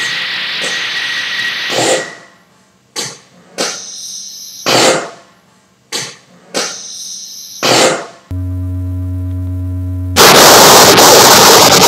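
Experimental sound-collage music. A hiss with a thin steady high tone cuts off about two seconds in. About six sharp struck hits with ringing tails follow, then a steady low hum of several held tones. About ten seconds in, a sudden loud wash of noise comes in and is the loudest part.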